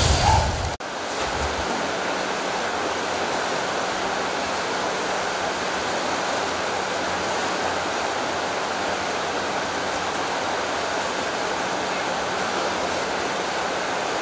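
Steady rushing of a flowing stream. It is preceded by a louder, deeper rumble that cuts off abruptly under a second in.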